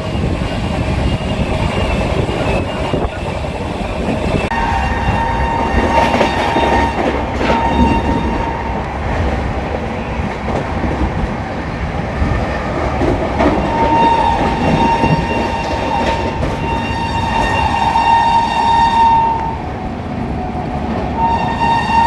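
Electric locomotive horn sounding in long held blasts over the steady running noise of a passenger train on the rails. The first blast comes about four seconds in with a short break, a longer one runs for about five seconds in the middle, and another starts near the end.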